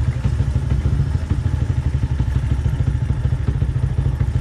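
Motorcycle engine running steadily while riding, heard from the rider's seat, with a loud, fast low exhaust beat.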